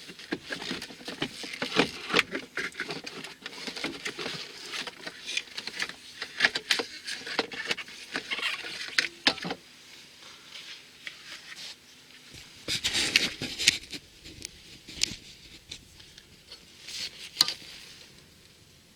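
Irregular clicks, taps and scratchy rustling of hand work on parts, busiest in the first half with a short flurry about two-thirds in; no fan or motor is running.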